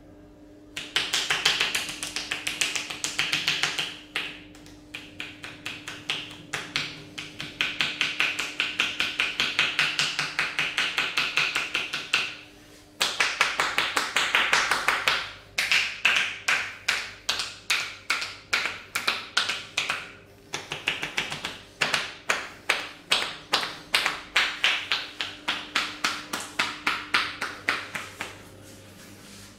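Hands striking the body in percussive massage, a fast even run of sharp taps at about three a second, in long runs with a few short pauses.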